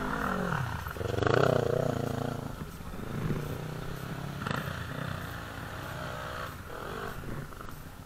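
Quad bike (ATV) engine running under the rider, its revs rising and falling with the throttle, loudest about a second in.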